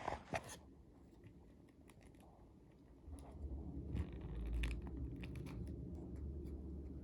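Faint scattered clicks and scratchy rustling over a low steady hum that comes in about three seconds in, with a few sharper clicks right at the start.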